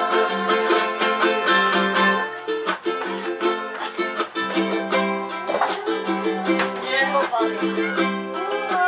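Music led by a ukulele, with plucked notes and some sung or gliding melody above.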